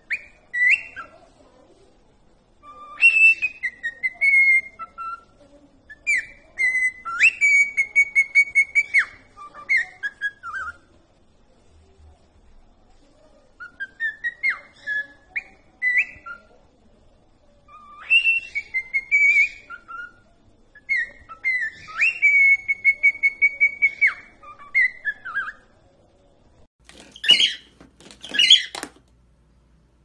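Male cockatiel whistling its song in repeated phrases of gliding notes, each phrase ending in a long held note with a fast warble, and the whole song sung twice. Near the end, a few loud, harsh, noisy calls.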